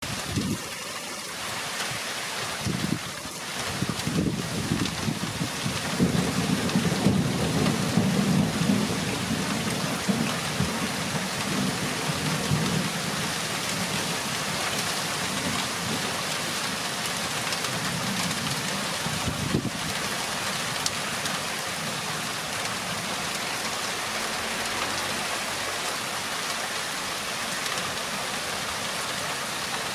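Steady rain of a thunderstorm falling on roofs and foliage, with a long low rumble of thunder that builds a few seconds in and fades away after about ten seconds.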